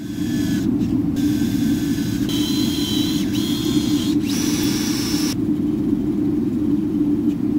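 Cordless drill running steadily with a low hum while its bit bores a small hole in a copper fitting. A higher cutting whine over it changes pitch several times and drops away about five seconds in, while the low hum carries on.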